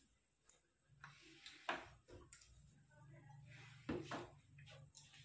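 Faint kitchen handling noises: a few short, sharp knocks and clicks, the loudest near two seconds in and a quick pair around four seconds in, over a low steady hum that starts about a second in.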